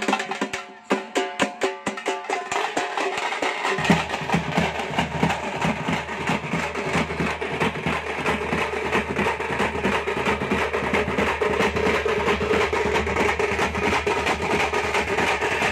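A group of double-headed drums beaten with sticks in a fast, steady rhythm. About four seconds in the sound thickens, with a steady low hum and a held tone joining under the beats.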